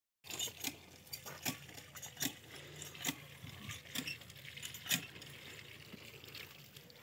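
Faint scattered light clicks and taps, several a second at irregular times, over a quiet background hiss.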